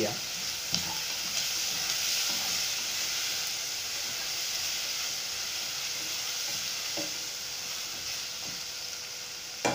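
Chopped onions and green chillies sizzling in hot oil in a pot as they fry toward brown, stirred with a slotted spatula that now and then taps and scrapes the pan. The sizzle fades slowly.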